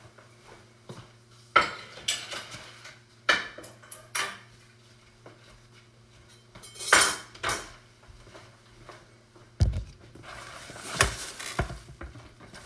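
Kitchen clatter of dishes and cutlery: a few sharp clinks and knocks, a longer rattle about seven seconds in, a low thump near ten seconds, then a stretch of rustling near the end, over a steady low hum.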